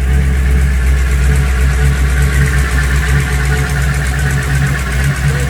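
406 small-block Chevy V8 with a four-barrel carburettor idling steadily: a loud, even drone.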